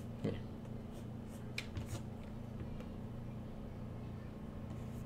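Low steady electrical hum and room tone, with a few faint clicks, one about a third of a second in and two more about a second and a half later.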